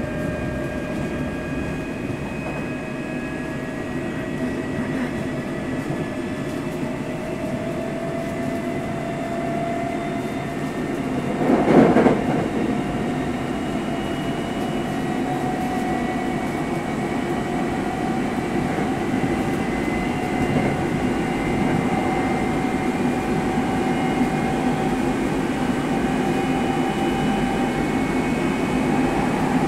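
Hankyu 7000 series electric train running, heard from inside the car above the bogie. The traction motors and gears whine, their pitch rising slowly as the train gains speed, over a steady rumble of wheels on rail. There is a brief loud burst of noise about twelve seconds in.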